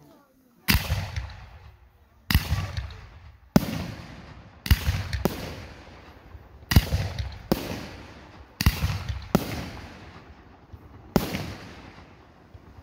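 Aerial firework shells bursting overhead: about ten sharp booms, unevenly spaced one to two seconds apart, each fading away over a second or so.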